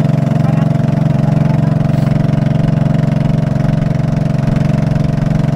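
A small motorboat's engine running steadily and evenly while the boat is under way.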